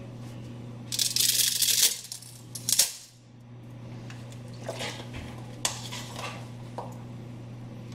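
Dry spaghetti snapped in half and dropped into an empty pot, a dense crackling rattle about a second in, then a sharp clack near the three-second mark and a few light knocks afterwards. A low steady hum runs underneath.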